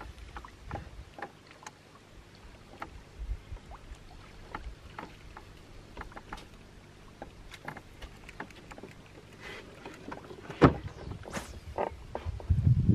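Small fishing boat on the water: scattered light clicks and knocks, one sharp loud knock about ten and a half seconds in, and a louder low rush near the end.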